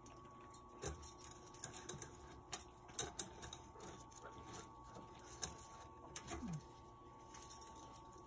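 Scrap copper strips and wire clinking and scraping as they are pushed by hand into a crucible: scattered light taps and clicks, over a faint steady hum.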